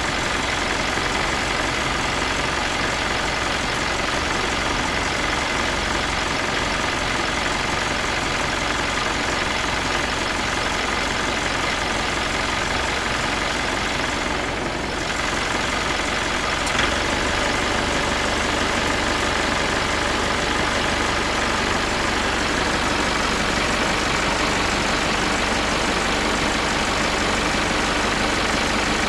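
Old diesel truck engine idling steadily, with a brief dip in level about halfway through.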